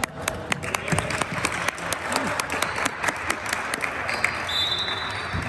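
Hand clapping close by, sharp claps at about four a second, over a wash of spectators' applause that swells in the first second and fades out near the end.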